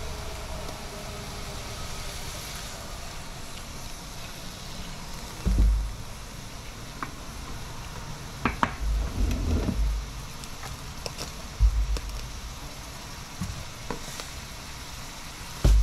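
Chopped onion and ginger sizzling gently in oil in a frying pan over a gas flame, a steady hiss. A few dull low bumps come through, about a third of the way in, in the middle and near the end.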